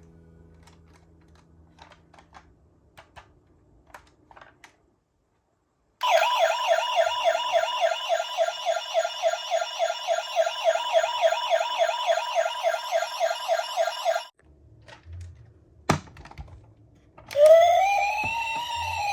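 Faint light clicking, then a toy ambulance's electronic siren: a fast warble for about eight seconds that cuts off, a single click, and a slower wail rising and falling near the end.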